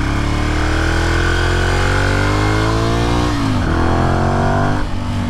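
2012 Ducati Monster 696's air-cooled L-twin engine, fitted with Akrapovic slip-on exhausts, accelerating hard. Its pitch climbs steadily for about three seconds, dips sharply as it shifts up a gear, climbs again, and drops once more near the end.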